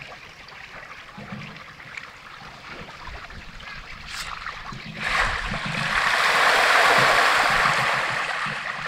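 Moving water at a pond surface. About five seconds in, a loud rush of water noise swells up, is loudest around two seconds later, then eases off.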